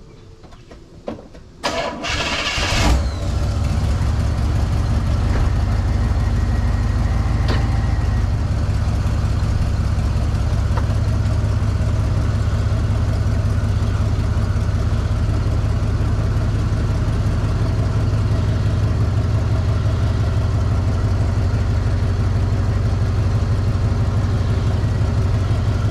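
The 1976 Cadillac DeVille's big V8 is cranked by the starter for about a second, catches, and settles into a steady idle.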